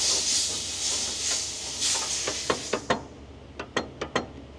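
Tools working on a tank's steering-brake adjuster nuts: a steady hiss for the first few seconds, then a quick run of about ten sharp metallic clicks as the nuts are turned.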